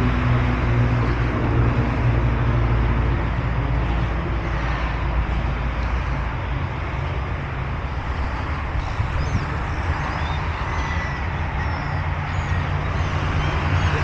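Steady road traffic noise, cars running past with a low engine hum that swells near the start and again near the end. Faint high bird calls come through in the second half.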